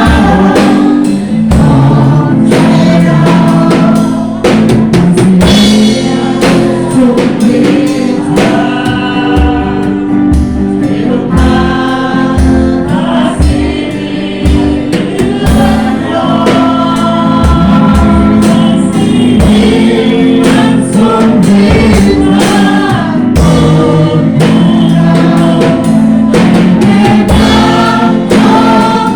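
Worship song with group singing over a band with drum kit, loud and continuous, with a steady bass-drum beat.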